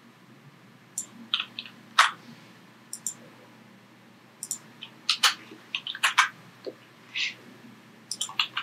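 Computer mouse and keyboard clicks: irregular single taps and quick pairs, the loudest about two seconds in, with a quick run of keystrokes near the end.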